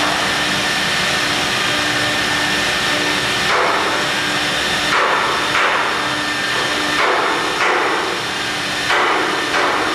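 CNC milling machine cutting marble: a steady machine hum and whine, joined from a few seconds in by repeated surges of harsh cutting noise, coming in pairs about every one and a half to two seconds.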